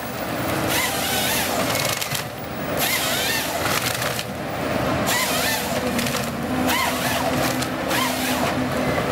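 Wheeled forestry harvester delimbing a felled tree: the machine's engine and hydraulics run under the crackle and snap of branches being stripped as the head feeds the stem through, with a couple of short breaks in the crackling.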